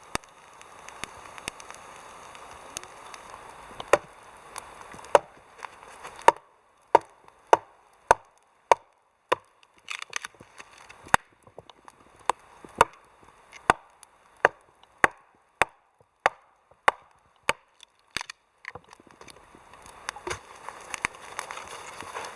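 Wood being chopped with a blade: a long series of sharp, separate strikes, about one to two a second, most steady through the middle.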